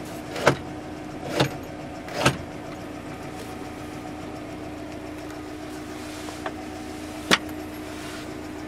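GAZ Gazelle's 2.9-litre inline-four, 8-valve engine idling steadily, heard from inside the cab. Sharp clicks and clunks come from the steering column's tilt lever being worked, three in the first two and a half seconds and one more near the end.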